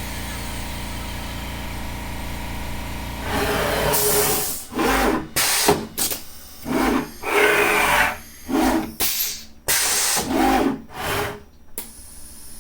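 CNC router hum with a faint whine falling in pitch, then, from about three seconds in, a run of about eight short, loud hissing bursts of compressed air that stop abruptly near the end.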